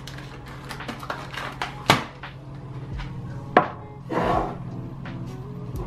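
Glass candle cups being handled in a cardboard box and set down on a hard counter: a few sharp clicks and knocks, two louder ones about two and three and a half seconds in, then a short rustle of plastic wrap just after four seconds.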